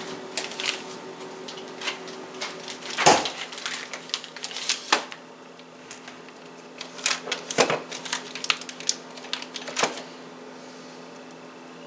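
Kitchen handling noises while getting the butter ready: irregular clicks and light knocks, a few louder, stopping about ten seconds in. A steady low hum sounds underneath throughout.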